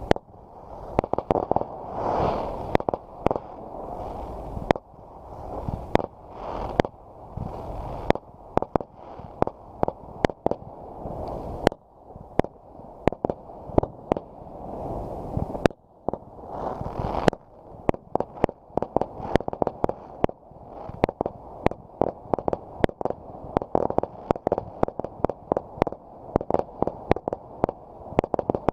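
Fireworks going off: a string of sharp bangs and pops over a low rumble, turning into a rapid barrage of many bangs a second over the last ten seconds or so.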